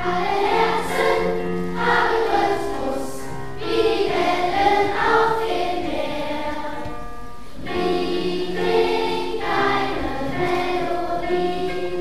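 Children's choir singing a German song with electronic keyboard accompaniment, in sung phrases of a few seconds. Around three and a half and seven and a half seconds in, the singing briefly pauses and the keyboard carries on alone.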